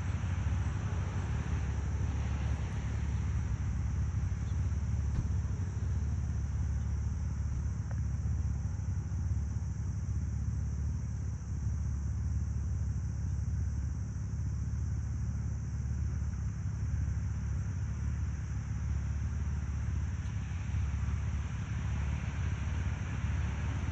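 Steady low outdoor rumble with no distinct calls standing out.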